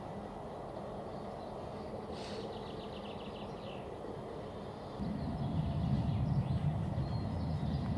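Small birds chirping and trilling over a steady outdoor background hiss. About five seconds in, a loud low rumble starts and keeps going.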